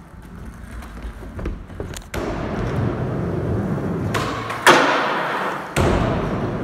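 Skateboard wheels rolling over the skatepark floor, with two sharp knocks of the board about a second apart in the second half, the first the loudest.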